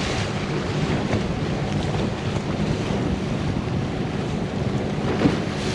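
Wind blowing across the microphone over rushing, splashing lake water, with a faint steady low hum underneath.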